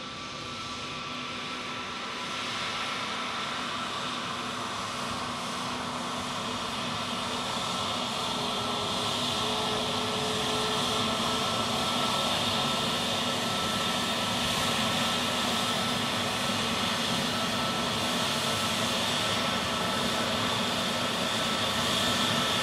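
Turbofan engines of a twin-engine jet airliner running at taxi power, a steady rushing whine with a high tone. It grows louder over the first dozen seconds as the aircraft taxis closer, then holds steady.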